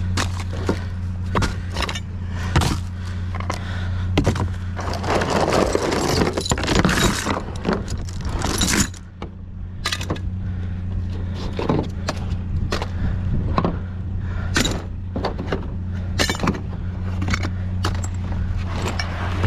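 Found junk and scrap being handled: a run of knocks, clatters and scrapes, busiest about five to nine seconds in, over a steady low hum.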